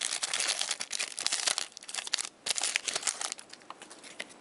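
Hockey card pack wrapper being crinkled and torn open, a dense crackling rustle for about two seconds, then quieter crinkles and clicks as the cards are handled.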